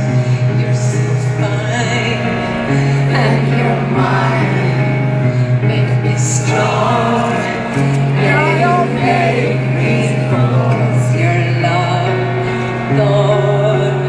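Live concert music heard through an arena sound system: a woman singing a slow song into a handheld microphone over piano, with long, steady low notes that change every few seconds.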